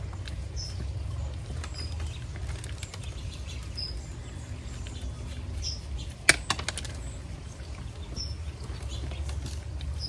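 Gloved hands crumbling wet potting soil off a cactus root ball: soft rustling and faint crackles, with one sharp click about six seconds in. A small bird chirps in short high notes about once a second, over a steady low rumble.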